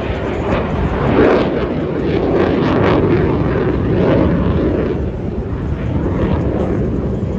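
Jet aircraft engine noise, loud and continuous, swelling and easing slightly with no clear pitch.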